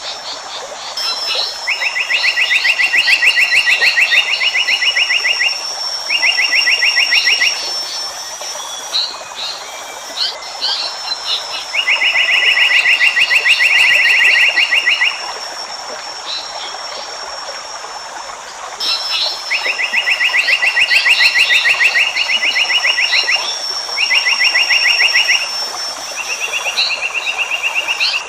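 Wild bird recording of an Asian paradise flycatcher (seriwang): loud, fast-pulsed trills lasting two to three seconds each, repeated every few seconds, with short high chirps between them and a steady high-pitched whine behind.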